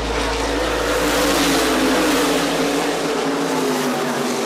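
Race car engines running on an oval track, the engine note dipping slightly and rising again.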